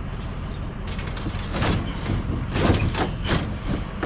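Steady low rumble of a vehicle engine running, with a series of short clatters and knocks starting about a second in.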